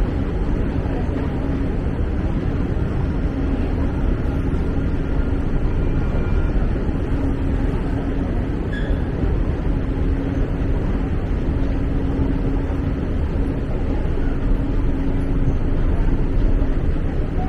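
Long metro-station escalator running: a steady low rumble with a faint humming tone over it.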